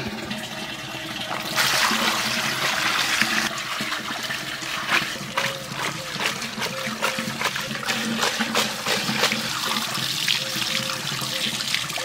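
Water splashing and streaming through a woven bamboo basket of chopped stingray pieces as the fish is washed, starting about a second and a half in and cutting off at the end.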